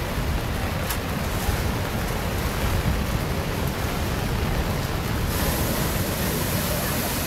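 Rough storm surf pounding a seawall, mixed with strong wind buffeting the microphone. About five seconds in, a big wave breaks over the wall and the hiss of surf and spray grows brighter.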